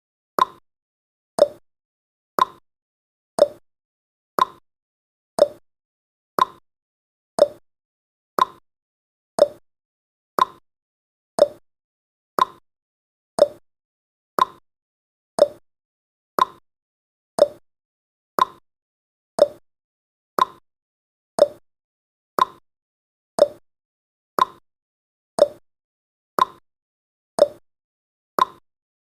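Countdown timer's ticking sound effect: a short, sharp click once every second, each dying away quickly, in an even, steady rhythm.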